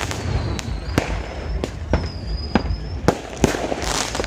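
Fireworks going off in quick, irregular succession: sharp bangs and pops over a continuous rumble, with high whistling tones from the shells twice.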